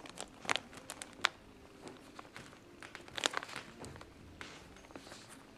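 Newspaper crinkling and rustling under a Chihuahua puppy's paws and nose as it walks and sniffs about on it: scattered sharp crackles, with a quick cluster about three seconds in.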